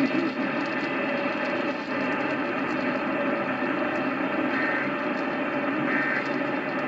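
Heavy AM radio static and hiss from a weak, distant broadcast station. Near the end, two short bursts of Emergency Alert System header data tones come through faintly, about a second and a half apart.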